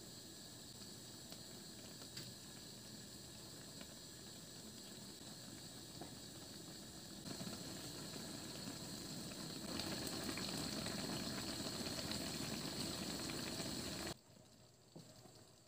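Upo (bottle gourd) and chicken stew simmering and bubbling in a wide pan on the stove burner. It grows louder in two steps, about seven and ten seconds in, as it comes to a fuller boil, then cuts off suddenly near the end.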